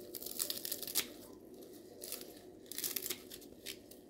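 Kitchen scissors snipping through a bunch of fresh lettuce leaves: a run of short, crisp cuts with brief pauses between them.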